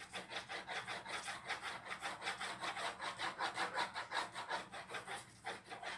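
Pencil shading on drawing paper: quick, even rubbing strokes, about five a second, laid over and over to build up the tone, with a short pause near the end.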